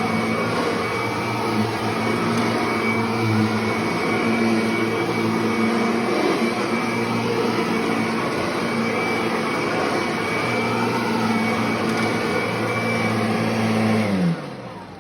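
Kirby Sentria upright vacuum cleaner running steadily with a motor hum and a high whine. About fourteen seconds in it is switched off, and its pitch falls as the motor spins down.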